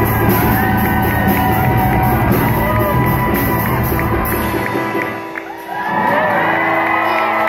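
Live rock band of drums, electric guitar and keyboard playing the last bars of a song, which stops about two-thirds of the way in. The crowd then cheers, whoops and screams.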